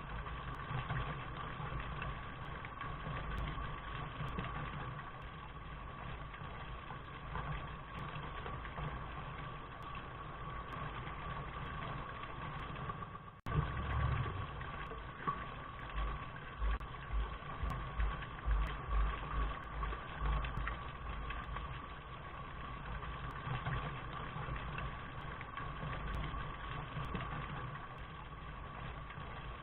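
Steady rain noise with an irregular low pulsing underneath. About halfway through it cuts out for an instant and resumes, followed by a run of low thumps for several seconds.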